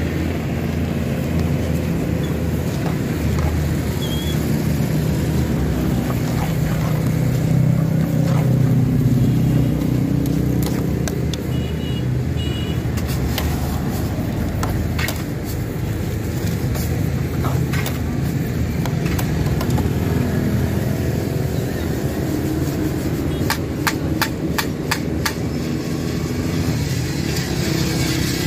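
Steady low rumble of nearby street traffic engines. Over it, scattered sharp clicks and scrapes of a metal ladle and sieve working kernels through hot roasting sand in an iron pan, with a quick run of clicks about three-quarters of the way through.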